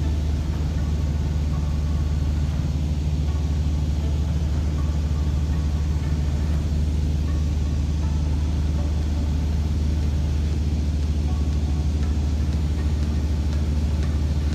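Piston engine and propeller of a Socata TB200 light aircraft running steadily in flight, a loud, even, low drone that does not change.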